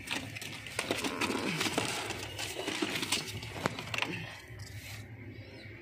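A pigeon being caught by hand in a wooden nest box: scuffling, wing flaps and claws on the droppings-covered floor, a run of sharp clicks and rustles that dies down about four seconds in.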